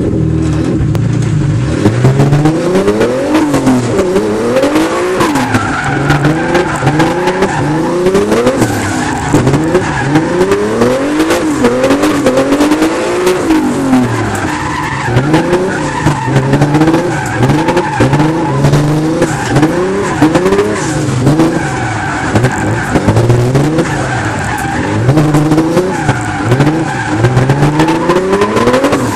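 640-horsepower drift car heard from inside the cabin, its engine revving up and down over and over, every second or so, as the throttle is worked through a drift, with the tyres skidding.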